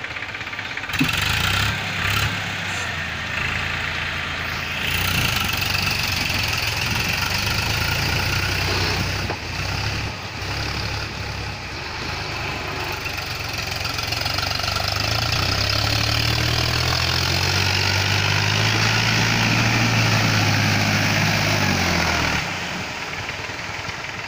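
Powertrac tractor's diesel engine running hard under load in deep mud. It comes in sharply about a second in, gets louder about two-thirds of the way through, and drops back suddenly near the end.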